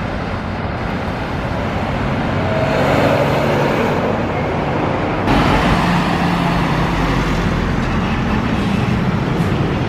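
Fire truck engine running close by, with a low steady drone that builds gradually and steps up suddenly about five seconds in.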